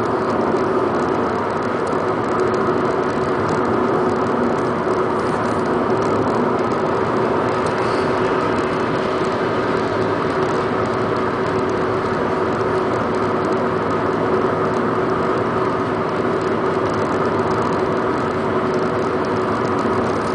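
Car interior noise while cruising at steady highway speed: engine and tyre noise with a steady drone.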